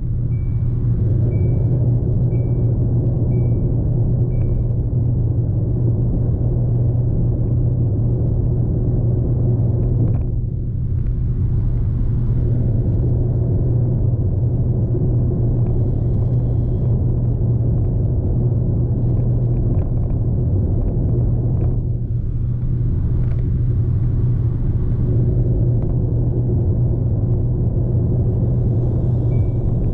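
Steady low rumble of a car on the move, engine and road noise heard inside the cabin, easing briefly twice. A short high electronic chime repeats about once a second for the first few seconds and starts again near the end.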